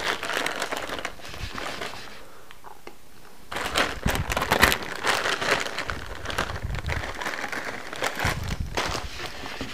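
Plastic bag of frozen tater tots crinkling as it is shaken out, with the frozen tots dropping into a glass casserole dish. The crackling comes in bouts, loudest about four seconds in and again near the end.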